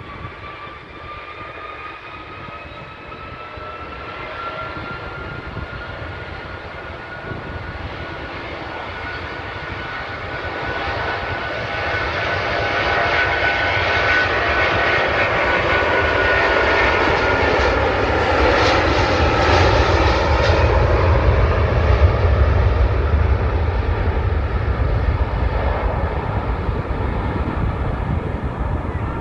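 Air Transat Airbus A330's twin Rolls-Royce Trent 700 turbofans spooling up to take-off power with a rising whine, then the take-off roll. The sound grows into a loud jet roar with a deep rumble, loudest a little past the middle and easing slightly near the end.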